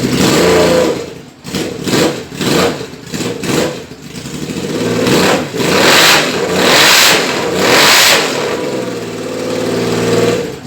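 Honda CBX 1047cc air-cooled inline-six with open, free-flowing exhausts, revved by hand at a standstill: it idles, rises in a rev, gives a quick run of short throttle blips, then three longer revs, and settles back to idle.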